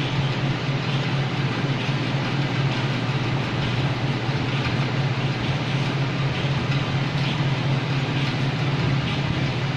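Steady blowing noise from an electric fan or blower motor, with a low hum underneath and no change in level.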